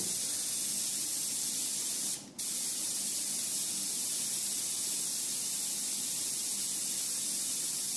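Steady hiss of compressed air from an airbrush held open, cut off for a moment about two seconds in, bleeding down the compressor's air tank so that it will cut in.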